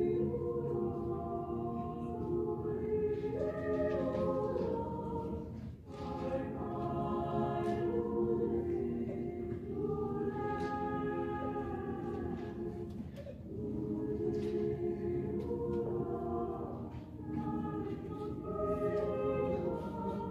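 A mixed-voice high-school chamber choir singing a cappella in several-part harmony: held chords in phrases, with a short break for breath about six seconds in.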